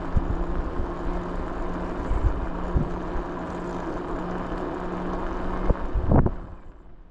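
A vehicle engine running steadily with a low hum, with a few knocks and bumps over it. The sound drops away sharply about six and a half seconds in.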